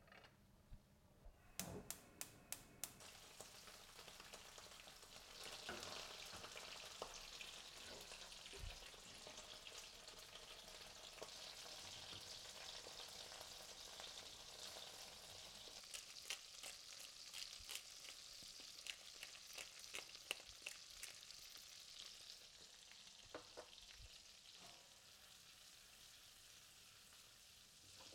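Whole shrimp frying in garlic oil in a pan: a faint, steady sizzle with crackling that strengthens a few seconds in. A handful of sharp clicks come near the start.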